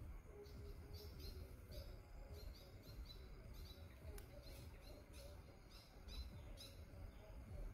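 Faint forest ambience: short high-pitched chirps repeating about two or three times a second over a low rumble.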